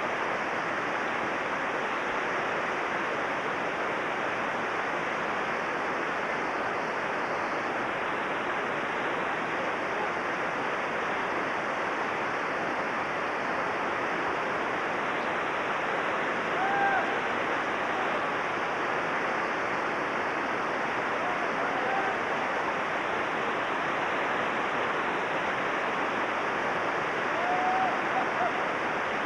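Steady rushing roar of whitewater rapids. A few faint, brief shouts come through over it in the second half.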